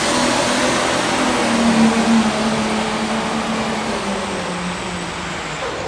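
Loud vehicle engine running with a dense, rushing noise, its low tone sinking slightly and the whole sound starting to fade near the end.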